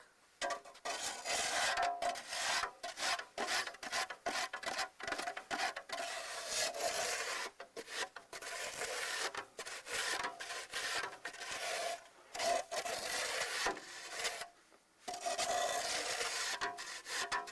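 Repeated crunching and scraping in deep snow, irregular strokes with short pauses, the loudest near the middle.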